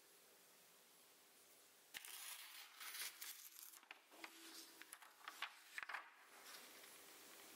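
A sheet of paper being torn out of a drawing pad: ripping and crackling that starts suddenly about two seconds in, with a few sharper snaps, and stops about six seconds in.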